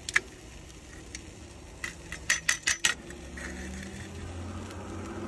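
Stainless-steel grilling tongs and spatula clinking against each other and the grill grate: two sharp clicks at the start, then a quick run of about five clicks around two and a half seconds in. A low steady hum comes in after about three seconds.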